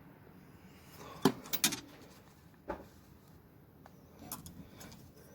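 A few sharp metal clicks and clinks of tools being handled in a toolbox: two close together about a second in, one near three seconds, and a softer patter of small knocks around four and a half seconds.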